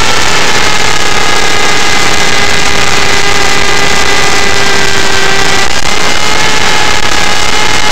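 Align T-Rex 500 electric RC helicopter heard from its own onboard camera: a steady, loud whine from the motor and gears over the rush of the rotor blades, shifting slightly in pitch about six seconds in.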